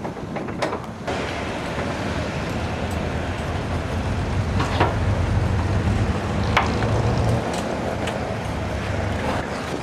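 A motor vehicle running nearby: a steady rumble that grows louder toward the middle and eases off. A few sharp knocks come as the aluminium tread-plate panel is handled, one just before the middle and one a couple of seconds later.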